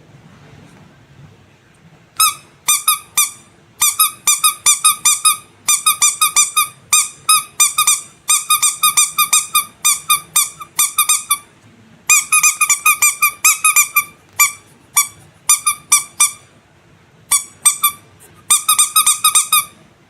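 Squeaky rubber animal toy squeezed over and over in quick runs of short, high, piping squeaks, several a second, with a few brief pauses. The squeaks start about two seconds in.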